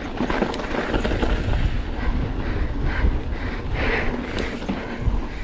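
Riding a mountain bike down a rocky trail: wind rushing over the helmet-mounted microphone, with the tyres and bike rattling and knocking over rocks.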